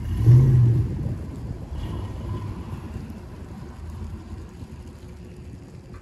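A car passing close by on a snow-covered road, loudest within the first second and then fading away.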